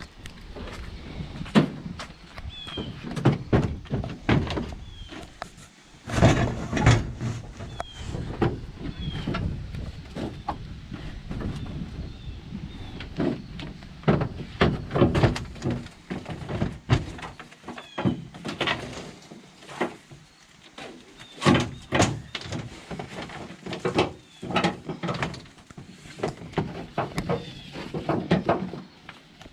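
A long run of irregular knocks, clunks and rattles, like gear being handled and set down around a pickup truck, with short high chirps now and then.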